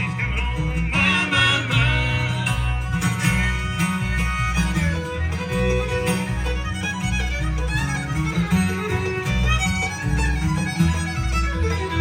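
Bluegrass band playing, with fiddle over guitar and a steady bass beat.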